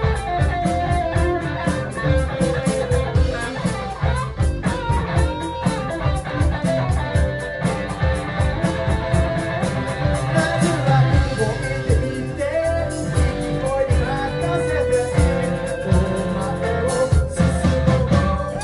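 Live rock band playing: a sung vocal over electric guitar and drums, with a steady cymbal beat.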